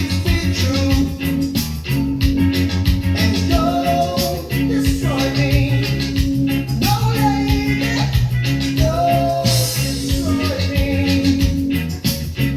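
Reggae song playing: a repeating bass line under a steady beat, with a melody line gliding above it.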